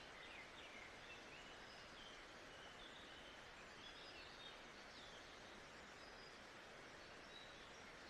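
Faint nature-sound ambience: a steady soft hiss with many distant birds chirping, in short high calls that overlap.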